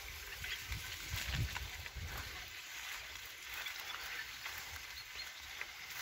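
Bicycle tyres rolling through slush, mud and puddles: a continuous wet crackling and sloshing, with some low rumbling in the first couple of seconds.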